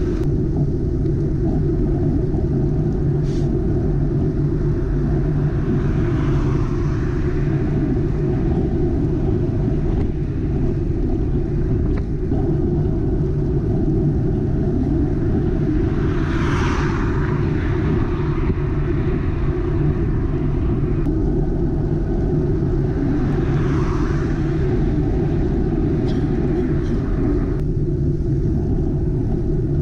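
Steady low rumble of wind and road noise on a bicycle-mounted action camera riding at about 20 km/h. Three vehicles pass on the wet road, each a swelling tyre hiss lasting a couple of seconds: about a fifth of the way in, midway, and about three quarters of the way through.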